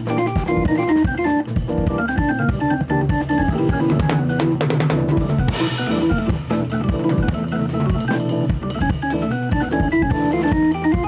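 Hammond B3 organ playing quick runs of notes over held low chords, with a jazz drum kit keeping time; a cymbal crash rings out about halfway through.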